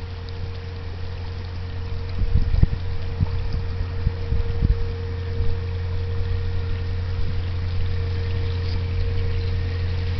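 Narrowboat's engine running steadily under way, an even low drone that grows a little louder toward the end, with a few short low thuds.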